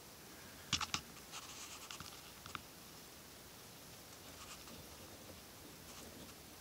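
Faint handling noise of a flashlight pressed and shifted against python eggs in vermiculite: a couple of sharp clicks a little under a second in, then light scratching for a second or two, then only a few faint ticks.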